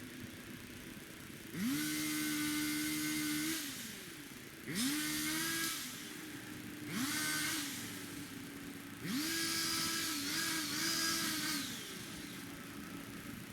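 Two-stroke gas pole saw idling, then revved up four times. Each rev rises quickly in pitch, holds for one to two and a half seconds, and drops back to idle.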